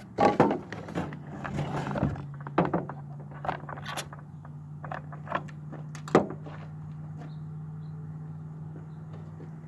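Hard objects being handled, likely tools and chainsaw parts: a scattered series of sharp knocks and clicks, the loudest about six seconds in, over a steady low hum that starts about a second in.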